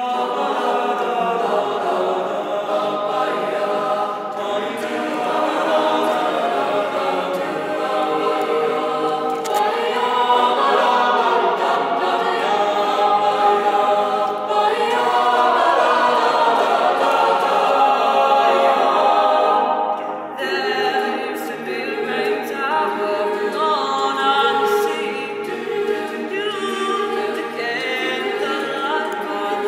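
Mixed high-school chamber choir singing a cappella in multi-part harmony. About two-thirds of the way through, it cuts abruptly to a different a cappella choral piece.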